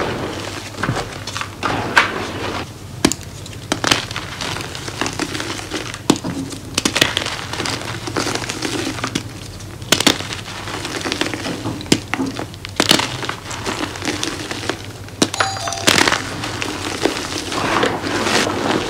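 Hands crushing blocks of homemade gym chalk in a heap of loose powder: irregular dry crackles and snaps as the chunks break apart, with soft crunching and sifting of powder in between.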